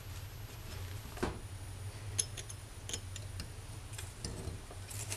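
Scattered light clicks and taps as a steel main bearing shell and its cast main bearing cap are handled and the shell is seated in the cap, over a steady low hum.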